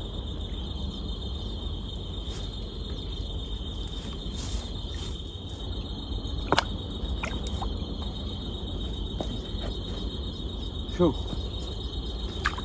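Steady high-pitched drone of insects trilling without a break, over a low background rumble. Two brief, sharper sounds stand out, one about halfway through and one near the end; the second falls in pitch.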